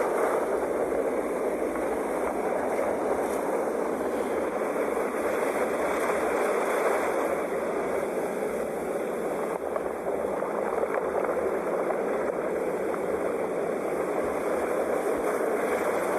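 Sea waves breaking and washing ashore: a continuous rush of surf that swells and eases only slightly.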